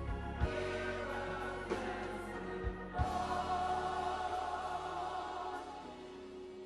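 Gospel choir singing with instrumental backing, a few low beats under it; a long note is held from about three seconds in.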